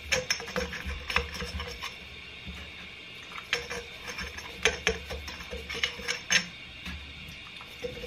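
Irregular metallic scraping and clicking of a tool worked up and down inside a dismantled pit bike rear shock absorber body, with a few sharper knocks along the way.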